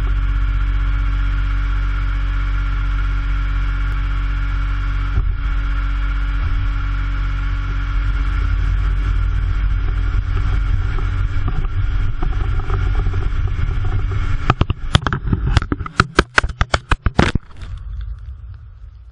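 Jeep Liberty driving on a dirt road, heard from a GoPro mounted on it: a steady engine and road drone with a low hum. About fifteen seconds in, a quick run of sharp knocks and clatters as the camera comes loose and tumbles onto the road, after which the vehicle noise drops away.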